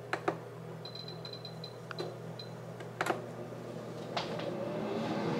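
Philips digital air fryer's control dial being turned to set the timer: clicks and a quick run of short high beeps as the setting steps up. Near the end its fan starts running, a steady rush of air that grows louder.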